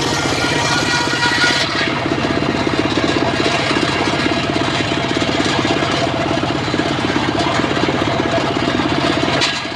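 Engine-driven mobile circular sawmill running with a fast, even engine pulse. A high hiss and whine over it drops away about two seconds in.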